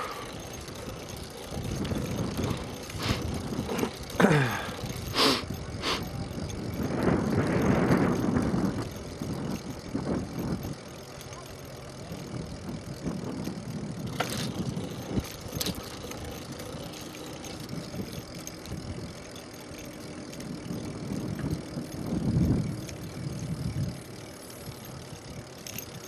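Bicycle riding noise: a steady rush of movement and wind on the microphone, with scattered clicks and rattles from the bike and a couple of louder gusts.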